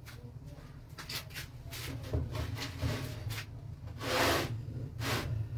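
Hands rubbing and brushing over a round flatbread: a run of short brushing strokes, with one longer stroke about four seconds in.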